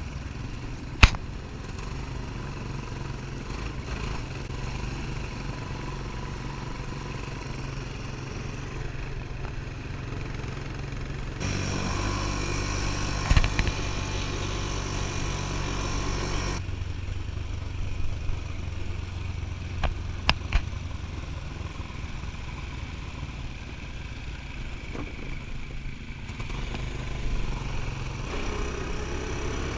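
ATV engine running steadily, its note stepping up and louder for about five seconds in the middle as it is given more throttle, with a few sharp knocks and clatter from the machine over rough ground.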